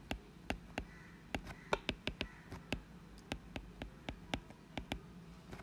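Stylus tapping and ticking on a tablet screen during handwriting: faint, irregular sharp clicks, about three or four a second.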